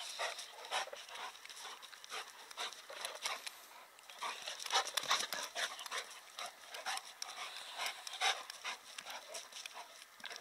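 Two Boerboel dogs playing, with quick irregular panting and the scuffle of their paws on bare dirt.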